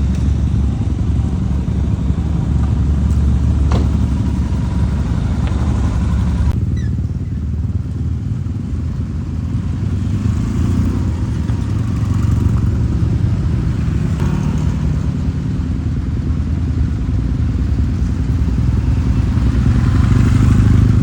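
Kawasaki W-series air-cooled parallel-twin motorcycle engine running steadily through its exhaust, with a slight swell in loudness near the end.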